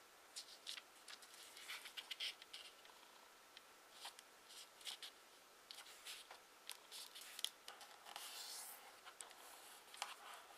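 Sheet of origami paper being folded and creased by hand: faint scattered crinkles and light ticks of the paper, with a longer soft rustle of fingers sliding along the fold a little after eight seconds.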